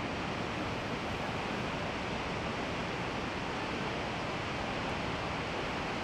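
Steady roar of Niagara Falls: water plunging and churning in the river below, an even rushing noise with no breaks.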